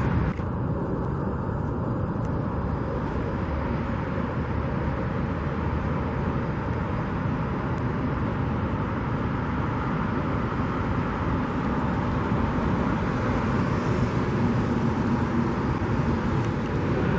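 Steady road traffic noise: a continuous rumble of cars on the street with no distinct events standing out.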